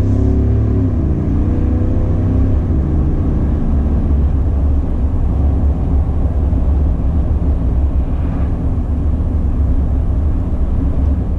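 2020 Chevrolet Silverado 1500's 6.2-litre V8 running through a Corsa Sport cat-back exhaust at cruising speed: a steady, deep exhaust note. The pitch shifts briefly near the start, then holds even.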